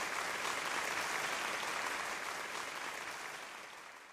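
Applause, an even clapping hiss that fades out steadily toward the end.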